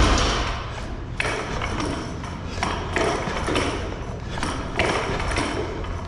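Loaded barbell with bumper plates clinking and rattling on the sleeves during squat reps. There is a sharp metallic knock every second or two over steady gym room noise, and the loudest knock comes right at the start.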